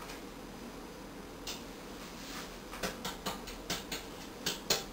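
Light, irregular tapping: a few soft taps a second, starting about three seconds in, as flour is tapped and shaken around a greased madeleine mold.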